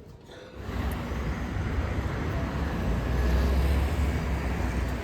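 Road traffic on a city street: a motor vehicle going by with a heavy low rumble, swelling to its loudest about three to four seconds in.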